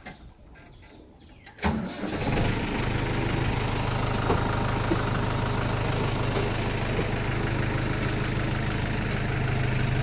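A vehicle engine starts about two seconds in, then settles into a steady idle.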